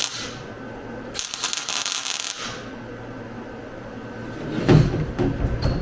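Welder laying a tack weld to re-fix a window track whose spot weld had broken loose, crackling and hissing for about a second and a half. Low knocks and handling sounds follow near the end.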